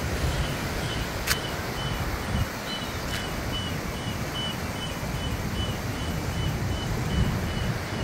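Surf breaking and washing into a rocky cove, with wind rumbling on the microphone. A faint high chirp repeats about twice a second, and there is a sharp click a little over a second in.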